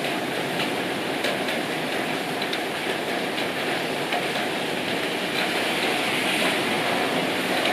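Heavy rain falling steadily, a continuous hiss with scattered individual drops tapping.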